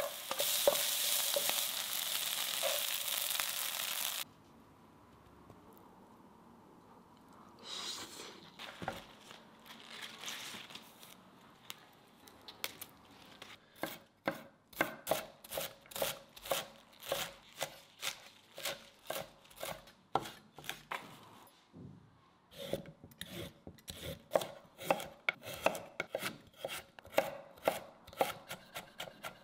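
Vegetables sizzling in a hot wok, cutting off abruptly about four seconds in. Then a hollow-edged kitchen knife chops on a wooden cutting board, first through rapini stems and then through carrot, in a steady run of knocks about two a second.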